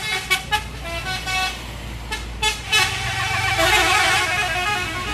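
Bus telolet horn, a multi-trumpet musical horn, playing a tune of short, quick notes, then several tones sounding together for about two seconds from around three seconds in, over the bus engine running.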